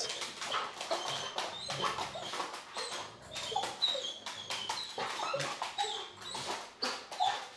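A young Doberman and a golden retriever play-wrestling on a hard floor: many quick claw clicks and scrabbles, with short whimpering whines among them.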